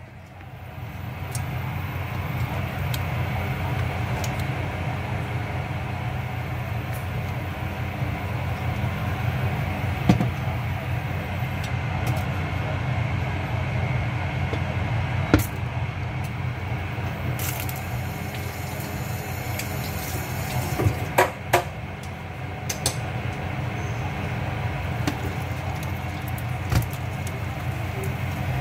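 Ginger frying in oil in a pan: a steady sizzle that builds up over the first couple of seconds and then holds, with a few sharp clicks of a utensil against the pan.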